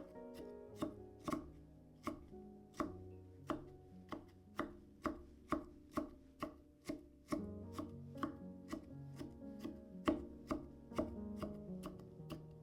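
Knife chopping food on a cutting board in steady, even strokes, about two to three a second, with lighter, quicker strokes in the last few seconds.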